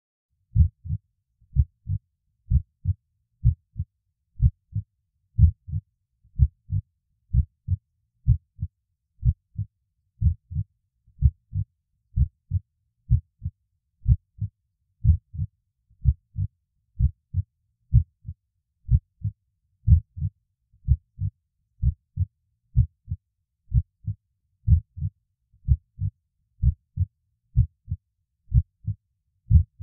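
A heartbeat sound effect: pairs of short, deep thumps, lub-dub, repeating steadily about once a second.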